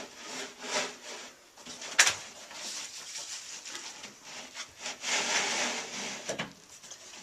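Wooden cabinet panels being handled and fitted together, with wood rubbing and scraping on wood. There is one sharp knock about two seconds in, a longer scrape around five seconds in, and another knock shortly after.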